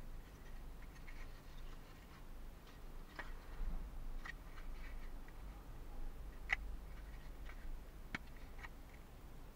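Pieces of a wooden construction kit helicopter being handled and fitted together: faint, irregular clicks and light taps of thin wood, the sharpest about six and a half seconds in.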